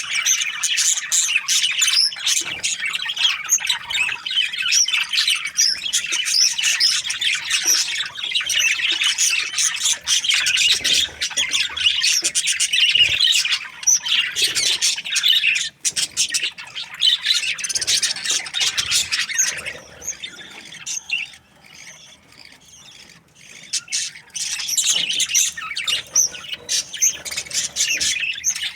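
A flock of budgerigars chattering and squawking, many overlapping rapid high chirps. The calling eases off for a few seconds after the middle, then picks up again.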